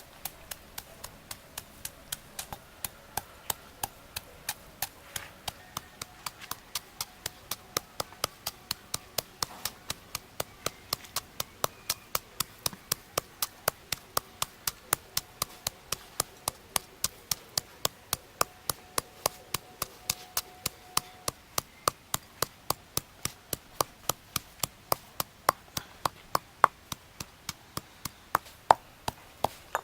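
A knife chopping on a cutting board in a steady, even rhythm of about three sharp strokes a second.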